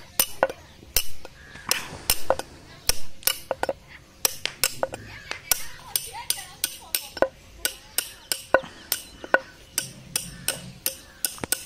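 Sharp metallic hammer taps, two to three a second at uneven spacing, as a farrier works on a bull's hoof during traditional shoeing.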